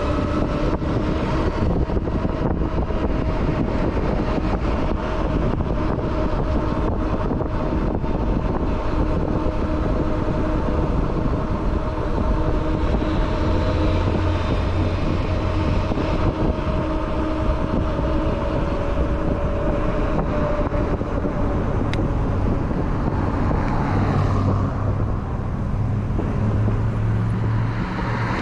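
Ride noise on a RadRunner electric bike moving along a busy street: a steady low rumble with a constant whine, and road traffic passing. A vehicle's engine grows louder near the end.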